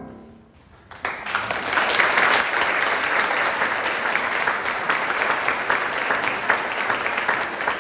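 The last piano chord dies away, and about a second in an audience breaks into steady applause.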